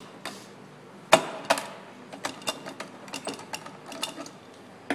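Hand pop-rivet tool at work on blind rivets: a string of sharp metallic clicks and snaps, the two loudest a little over a second in, followed by a quicker run of lighter clicks.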